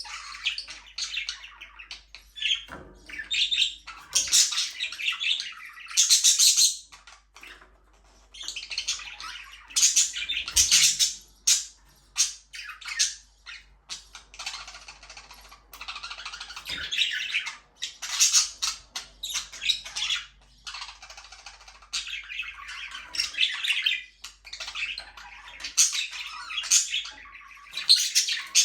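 Several budgerigars chattering, chirping and squawking in overlapping bursts with short lulls between.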